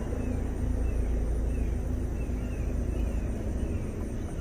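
A small bird repeats short falling chirps, about two a second, over a steady low rumble.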